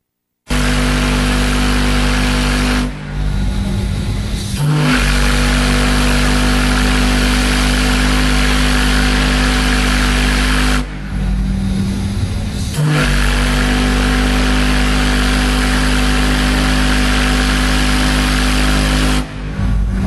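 A steel organ-pipe steam whistle with an 8-inch by 72-inch bell, blowing a loud, very deep single note with a rush of steam. The note drops out to a hiss for a second or two about 3 seconds in, again about 11 seconds in and near the end, then comes back each time.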